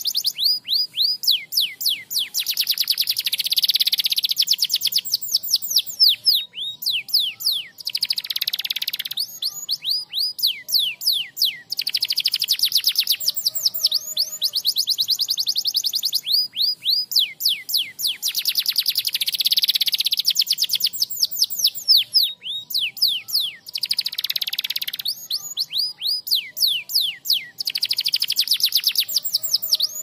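Domestic canary singing without pause: long rapid trills of quick downward-sweeping notes, with a denser, louder roll every few seconds.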